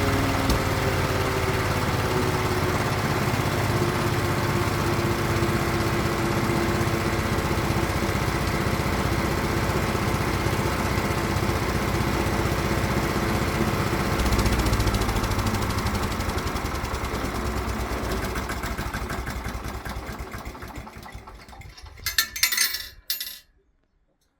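7 HP gasoline engine on a wood chipper running steadily. The sound fades away over the last several seconds, with a couple of short loud bursts just before it cuts off.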